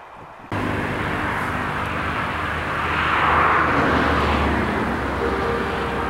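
Steady low engine hum under a rushing noise that swells in the middle and eases off. It cuts in suddenly about half a second in.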